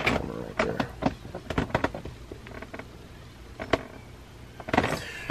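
A few scattered knocks and clicks with some rustling, from a person moving about and handling things close to the camera, with a denser cluster of knocks near the end.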